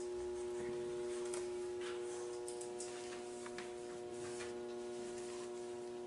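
A steady electrical hum holding several pitches, with faint scattered ticks and light handling sounds from small parts being worked by hand.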